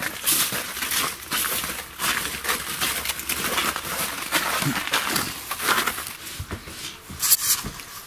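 Footsteps crunching on a thin layer of snow and ice, an irregular crackle of many small steps.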